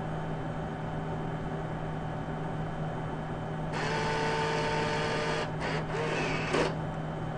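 IGT AVP slot machine booting up after a restart: a steady electrical hum from the cabinet. About four seconds in, a small motor inside it whirs with a steady whine for about three seconds, cutting out briefly twice before it stops.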